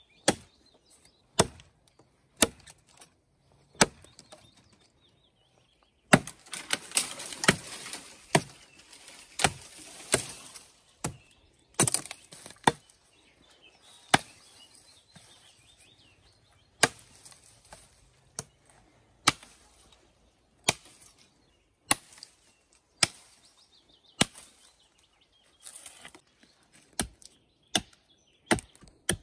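Kent pattern bushcraft axe chopping into wood: a long series of sharp, irregularly spaced strikes, about twenty in all, with a few seconds of rustling noise about a quarter of the way in.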